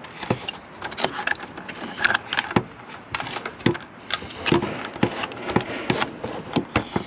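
Antenna cables being pulled by hand through a plastic roof cable gland: an irregular run of small clicks, scrapes and rustles of cable and plastic.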